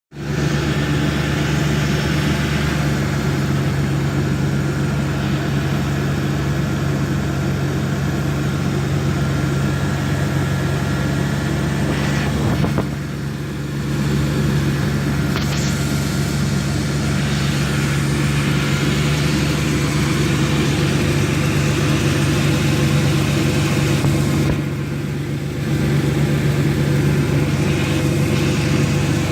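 2002 Dodge Intrepid's 2.7-litre V6 engine idling steadily, its level dipping briefly twice, about halfway through and again a few seconds before the end.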